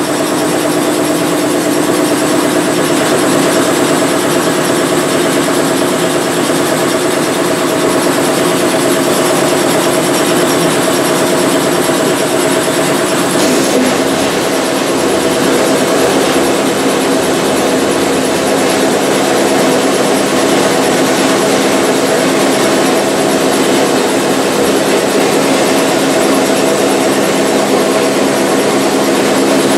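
Vapor blasting cabinet running, its nozzle spraying a hissing jet of water and abrasive at a brake caliper bracket to strip it clean. A steady mechanical hum runs underneath the hiss.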